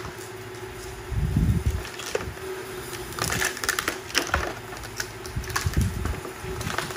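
Puppies scuffling and play-wrestling on a concrete floor: claws scratching and clicking, toys rustling, and dull thumps, the heaviest about a second in and again near the end, over a faint steady hum.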